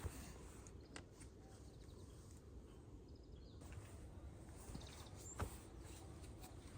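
Quiet outdoor ambience with faint, distant bird chirps and a few sharp snaps, the loudest about five and a half seconds in.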